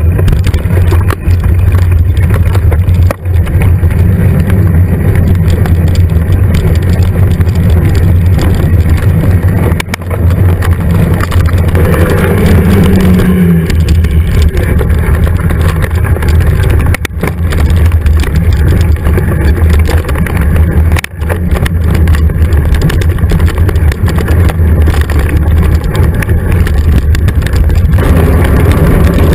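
Steady low rumble of wind and riding noise on a GoPro Hero 2 action camera's microphone while a mountain bike rolls over dirt forest trails, with a few sharp knocks from bumps in the track.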